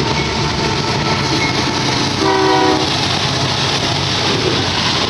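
Freight train passing close by, its locomotive and then its cars going past with a steady rumble and rattle of wheels on rails. A short horn blast sounds a little over two seconds in.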